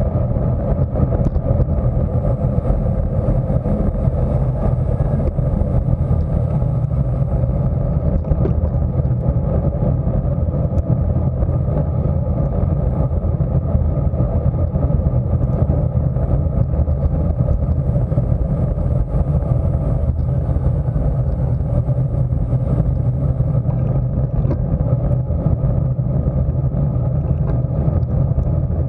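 Steady low rush of wind and road noise on a bicycle-mounted camera's microphone, riding at about 27 mph.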